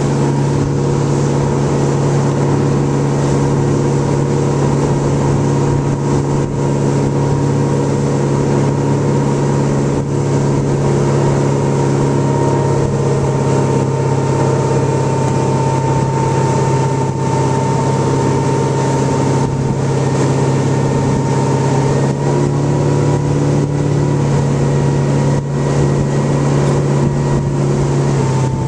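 Tow boat's engine running steadily at speed, a constant low drone with a thin high whine, over the rush of wind and churning water.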